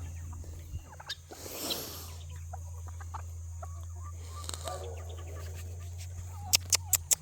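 Chickens clucking softly, over a steady low hum, with a quick run of sharp clicks near the end.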